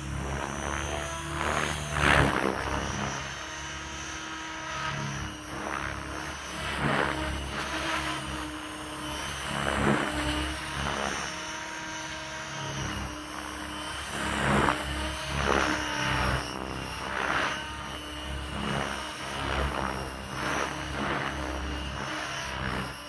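RC helicopter in flight, its rotor blades whooshing in swells about every one to two seconds over a steady motor whine, as it rocks back and forth through tic-tocs.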